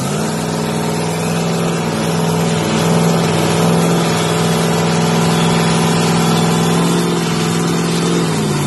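Dragster engine running at steady revs while the car sits in place, making one continuous loud droning note. The pitch sags slightly near the end.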